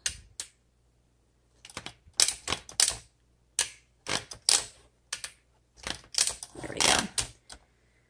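1965 Olympia SM9 manual typewriter being adjusted by hand: scattered groups of sharp clicks and clacks from the platen knob and the carriage return lever, with a longer stretch of clatter near the end as the carriage is moved.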